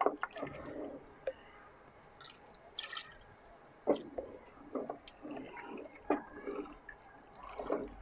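Thick meat gravy sloshing and dripping in a large aluminium pot as it is stirred with a wooden spatula and a flour-and-water slurry is poured in slowly, with a few short knocks. The flour is being added a little at a time so the nihari gravy thickens without lumps.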